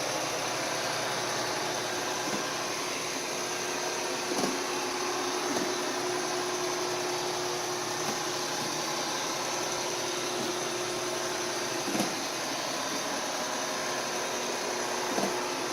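bObsweep PetHair robot vacuum running with a steady whirring hum and a held tone, with a few brief knocks.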